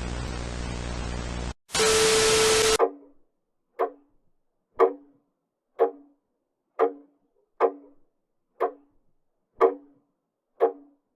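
Buzzing static over a low hum that cuts off, then a short burst of loud hiss carrying a steady tone. After it comes a run of short, sharp knocks, about one a second, each with a brief low ring.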